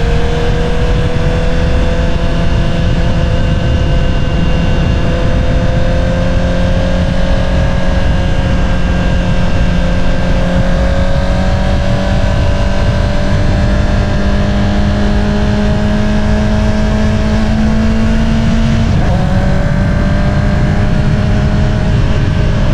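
2022 Honda CBR650R's inline-four engine running through an Akrapovič single-outlet exhaust while riding at a steady, light throttle. Its pitch rises slowly, then dips slightly about three-quarters of the way through.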